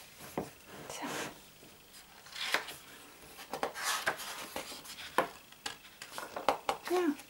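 Thick pages of a large hardcover photobook rustling and flapping as they are turned and the book is pressed open, in a series of short, separate rustles and taps.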